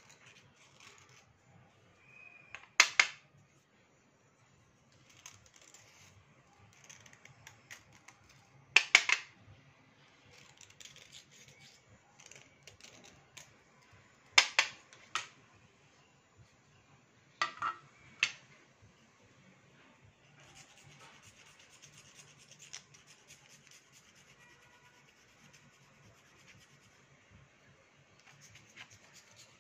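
A small knife blade scraping along a slate pencil, a soft dry rasping in short strokes, with stretches of steadier scraping. Five sharp, loud clicks stand out, spaced a few seconds apart.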